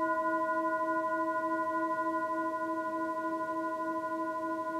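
Tibetan singing bowl sounding a steady, sustained ringing tone with several overtones, its lowest note pulsing in a regular wobble.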